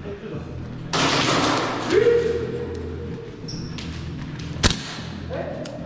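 Noisy movement in a plywood-walled airsoft hall, with a drawn-out call from a person's voice. A single sharp crack sounds a little over halfway through.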